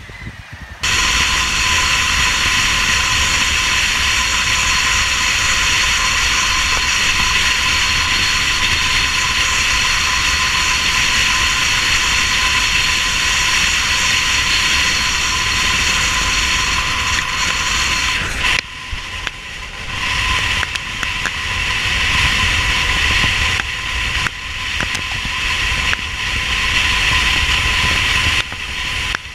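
Chevrolet D-Max pickup driving at highway speed, heard from a camera mounted on its outside: a loud, steady rush of wind and road noise with a constant whine. A second of wind and surf comes first, and the rush drops out briefly three times.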